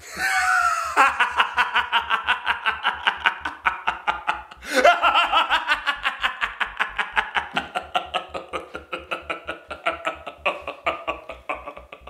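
A woman laughing hard in a long run of quick, rhythmic ha-ha pulses, breaking into a fresh loud peal about five seconds in and tapering off toward the end.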